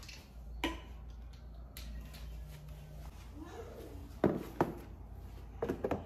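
Light knocks and clicks of an empty plastic spray bottle and its unscrewed nozzle being handled and set down on a granite countertop, the loudest pair about four seconds in, then a few clicks as a plastic storage box's lid is lifted near the end.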